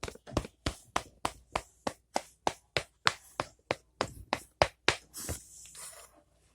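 A steady run of sharp taps, about three a second, giving way near the end to a brief hiss.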